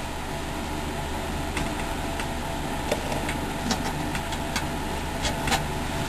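Steady low background hum with about seven faint, scattered light clicks and taps of handling.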